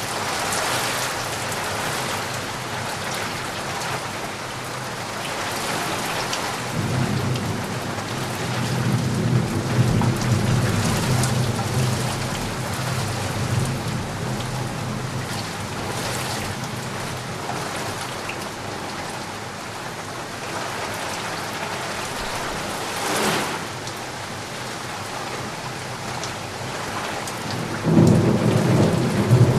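Steady rain with thunder rumbling twice: a long roll from about a quarter of the way in, and another starting near the end.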